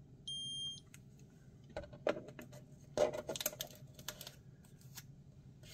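Keto-Mojo GK+ blood ketone meter beeping once, about half a second long, as the blood sample is taken up by the test strip. Then a string of clicks and knocks as the meter is handled and set down on a wooden desk.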